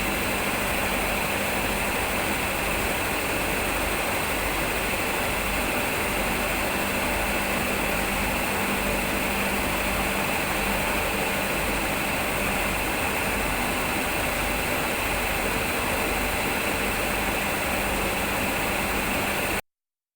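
Steady hiss with a low hum underneath, unchanging throughout, that cuts off suddenly to silence near the end.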